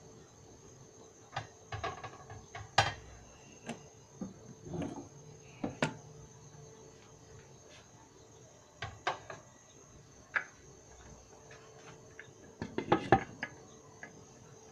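Scattered clicks and knocks of kitchen pots and utensils, ending in a quick cluster of clinks as a glass lid is set down on a cooking pot near the end.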